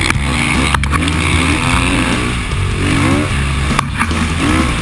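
Dirt bike engine revving up and falling back several times as it is ridden hard around a flat track.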